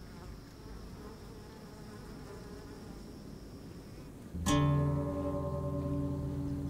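Soundtrack music: a faint hum with a thin, high steady tone, then about four and a half seconds in a loud low note with ringing overtones strikes suddenly and sustains, slowly fading.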